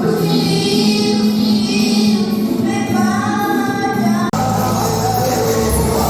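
Music with singing voices. About four seconds in it breaks off abruptly and a different passage with a heavier bass begins.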